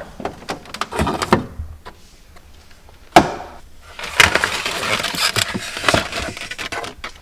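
Refrigerator door being opened and food handled inside: light clicks and knocks, one sharp knock about three seconds in, then rustling and clatter as a foam egg carton is slid off a shelf.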